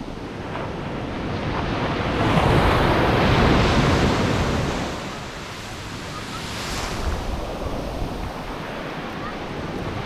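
Ocean surf breaking at the shoreline, its foam washing up the sand close by. It swells to its loudest a couple of seconds in, eases off, then comes again with a smaller wash later on. Wind noise on the microphone throughout.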